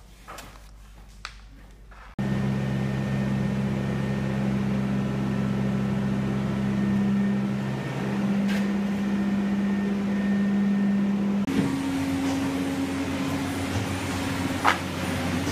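Faint clicks, then a steady low mechanical hum from a running motor or engine starts abruptly. About nine seconds later it changes abruptly to a slightly higher-pitched hum.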